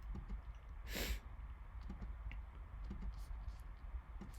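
Faint computer-mouse clicks while a list is randomized several times over, with a short breathy hiss about a second in.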